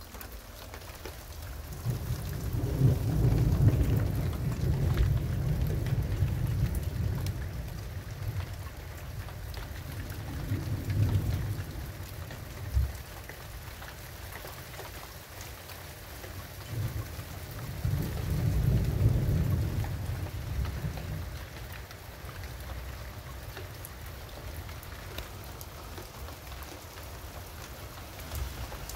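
Thunder rumbling over steady rain: a long rolling peal from about two seconds in, a shorter one near the middle, and another a few seconds later.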